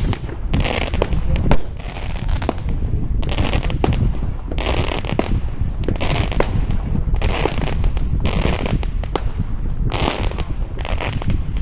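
New Year's Eve fireworks and firecrackers going off all around: many sharp bangs at irregular intervals, with bursts of crackling about once a second.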